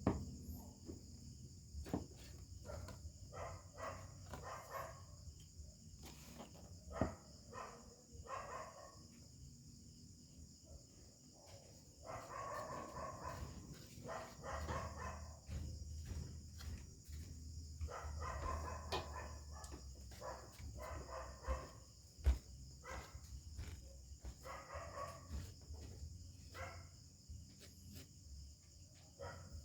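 Steady high chirring of crickets, with several animal calls of a second or two each and scattered small clicks and knocks.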